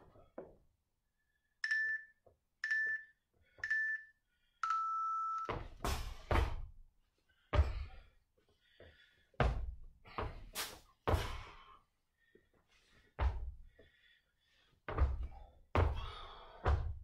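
Gym interval timer giving three short countdown beeps and then one longer, lower beep to start the work set. It is followed by a run of heavy thuds of feet landing from plyo jumps and single-leg hops on a rubber gym floor.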